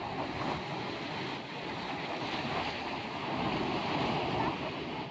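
Ocean surf washing in over a shallow sandy beach: a steady rush of breaking waves, swelling slightly a few seconds in.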